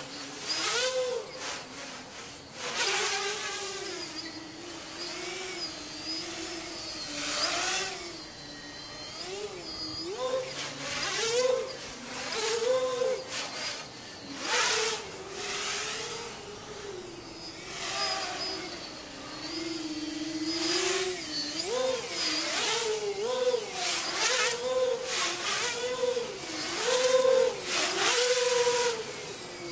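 Electric motors and propellers of a 345 mm tricopter whining in flight, the pitch wandering up and down as the throttle changes, with swells of rushing noise now and then.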